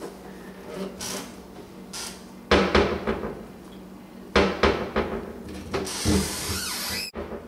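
Wooden kitchen cabinet door knocking and bumping against its frame in three short clusters of knocks, as a toddler sitting inside the cabinet pushes it open and pulls it shut.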